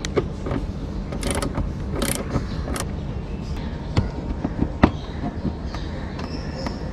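Hand tools working the fasteners under a car's front bumper: scattered metallic clicks and scrapes as a socket wrench turns 10 mm bolts and a screwdriver turns plastic screws. A steady low hum runs underneath.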